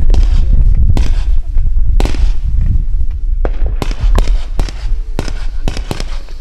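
A 76-shot consumer fireworks cake firing shot after shot: sharp launch reports over a heavy low rumble, about one a second at first and then roughly two a second in the second half.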